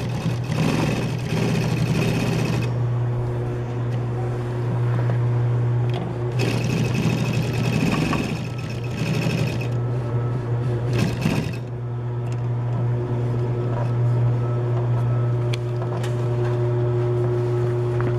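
JUKI DU-1181N industrial walking-foot sewing machine stitching in runs: a first run lasting about two and a half seconds, a longer one of about three and a half seconds starting about six seconds in, and a short one near eleven seconds, over a steady low motor hum.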